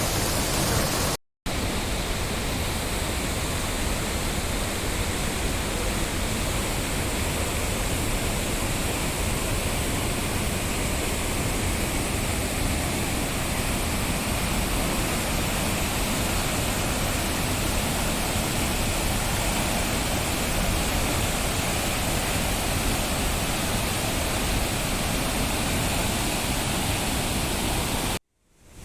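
Steady rush of a fast-flowing mountain stream, with a brief cut to silence about a second in.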